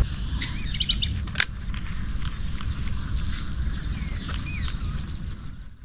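Open-air ambience: a low wind rumble on the microphone, a few short bird chirps and one sharp click about a second and a half in.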